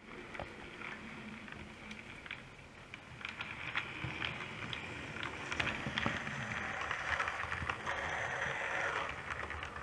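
OO gauge model train running along the track: a steady whirr with many small irregular clicks and rattles of the wheels on the rails. It grows louder about five seconds in, as the train passes close.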